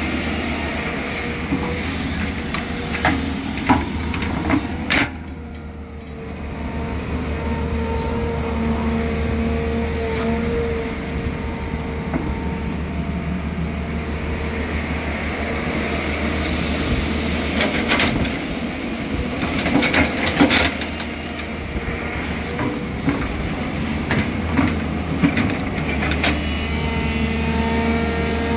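Tata Hitachi tracked hydraulic excavator running, its diesel engine a steady low drone with a higher whine that comes and goes as the boom and bucket work. Sharp knocks and clanks of the bucket and clods of mud come in clusters a few seconds in and again past the middle.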